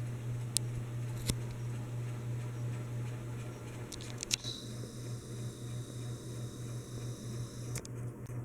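Hampton Bay Landmark Plus ceiling fan motor running with a steady low electrical hum, the buzzing hum this fan makes on some of its speed settings. A few sharp clicks come through, and about halfway in the hum starts to pulse slightly.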